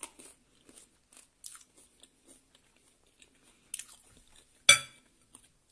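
Close-up chewing and crunching of crispy food, a scatter of small mouth crackles, with one sharp, much louder crunch near the end.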